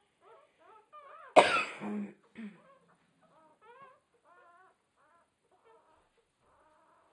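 Newborn puppies squeaking and whimpering in a string of short, high chirps. A loud cough breaks in about a second and a half in, followed by a shorter second one.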